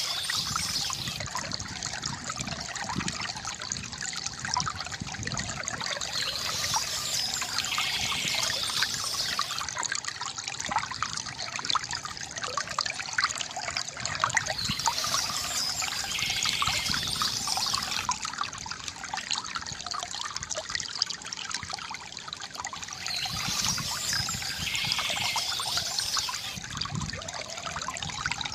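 A small stream trickling and babbling steadily, with a brief higher hiss returning about every eight seconds.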